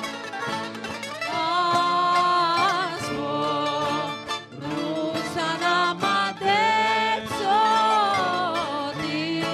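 Live rebetiko music: plucked and strummed strings keep a rhythm under a sustained, wavering melody line, with two long held notes, the first starting about a second in and the second past the middle.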